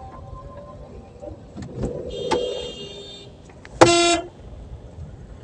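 A car horn gives a short, loud honk about four seconds in, heard from inside a car in street traffic. A fainter horn-like tone sounds for about a second shortly before it.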